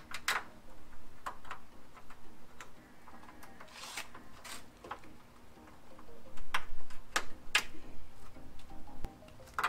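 Scattered, irregular sharp metallic clicks and clinks of hand tools and parts being handled at the front of a car's engine bay, the loudest few about six to eight seconds in.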